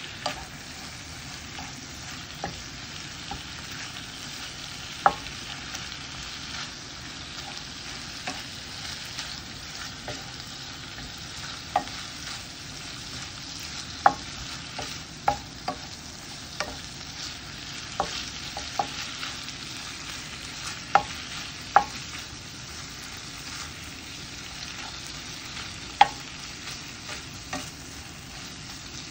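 Salmon and bok choy sizzling in a frying pan while being stir-fried with a wooden spatula, which knocks and scrapes against the pan at irregular moments, every second or two.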